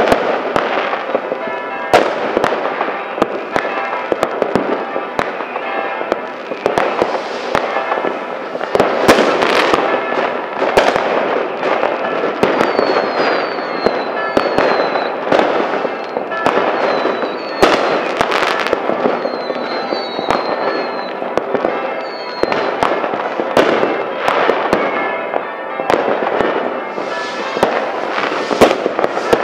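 Fireworks and firecrackers going off thickly: continuous crackling with frequent sharp bangs, and short falling whistles repeating through the middle stretch.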